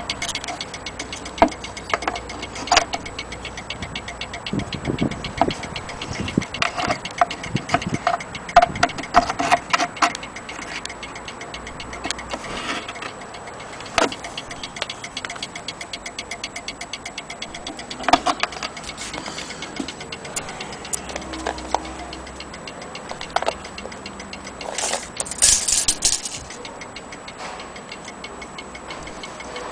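Antique fusee station clock ticking steadily, with louder irregular clicks and knocks scattered through and a brief rustling noise a little before the end.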